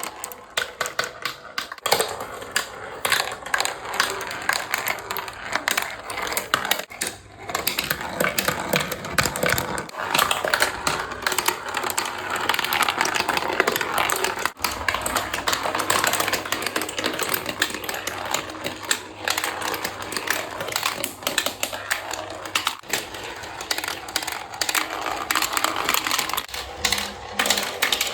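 Marbles rolling and clattering down a steep wooden track: a dense, continuous run of hard clicks and rattles as they hit the wood and each other.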